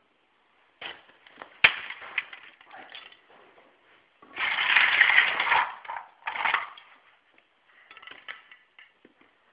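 Plastic toy cars and their broken parts crashing and clattering: a single sharp knock about a second and a half in, then a longer noisy clatter lasting about a second and a half, a shorter one right after it, and a few light knocks near the end.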